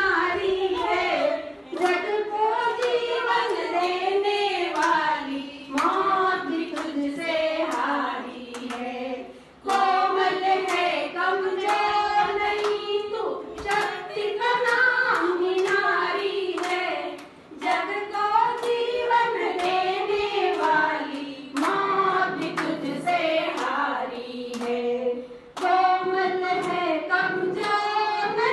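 A woman singing into a microphone, with a group of women clapping along in a steady rhythm.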